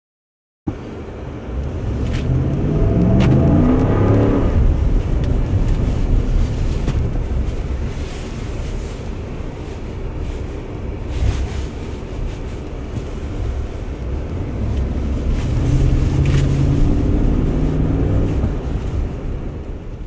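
Ford F-150's 5.0-litre V8 heard from inside the cab while driving. The engine note climbs for a few seconds under acceleration until a gear change about four seconds in, then settles to cruising with road noise. It pulls harder again a few seconds before the end.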